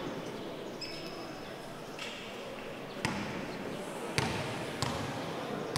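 Basketball bounced on a hard gym floor: a player dribbling at the free-throw line before a shot. Four sharp bounces come at uneven intervals in the second half, over a murmur of voices.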